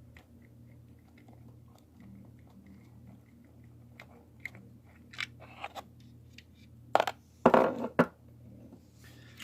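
Phillips screwdriver backing a small screw out of a plastic seat-adjustment switch, faint ticks and scrapes, then louder crunchy plastic handling noises about seven seconds in.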